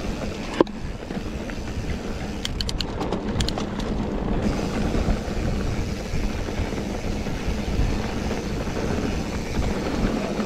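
Mountain bike riding noise from a helmet- or bike-mounted action camera: wind rumble on the microphone and tyres rolling over a pebbly singletrack, with a sharp knock about half a second in and a quick run of light clicks a few seconds in.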